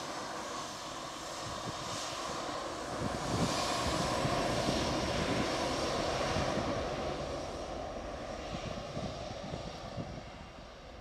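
Engines of a twin-engine jet airliner running as it rolls away down the runway for take-off: a broad, steady jet noise that swells a few seconds in and then fades as the aircraft moves off.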